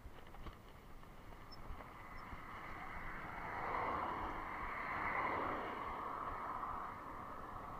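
A van passing close by on the road, its noise swelling about three and a half seconds in and easing off toward the end.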